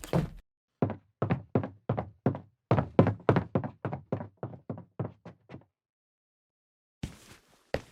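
Quick footsteps on a wooden floor, about three or four hollow knocking steps a second, stopping about two seconds before the end. A new take with faint steps starts near the end.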